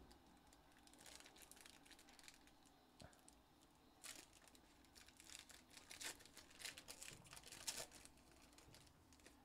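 Faint crinkling and tearing of a foil trading-card pack (2021-22 Panini Crown Royale) being ripped open and peeled apart by hand. It comes in crackly bursts, about a second in and again from about four to eight seconds in.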